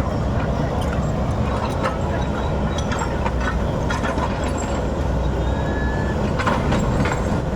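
Heavy diesel machinery engine running steadily, with scattered sharp knocks and cracks over it.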